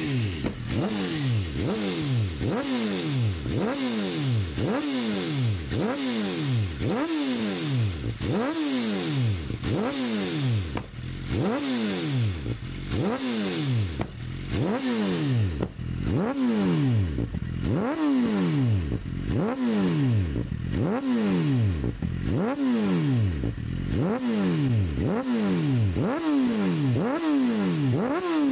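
BMW S1000RR's 200-plus-horsepower inline-four, fully warmed up and breathing through an Akrapovič slip-on silencer, revved in repeated sharp throttle blips. The engine note shoots up and falls back toward idle about once every second and a half, some twenty times.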